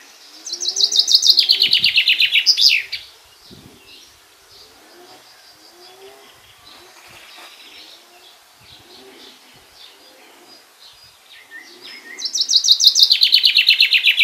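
Male common chaffinch singing twice: each song is a fast trill of repeated notes that steps down in pitch and ends in a quick flourish, about two and a half seconds long, one just after the start and one near the end.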